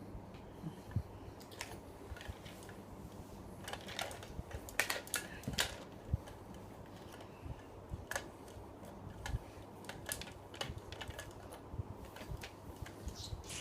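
Scattered light clicks and taps from someone eating, busiest from about four to six seconds in.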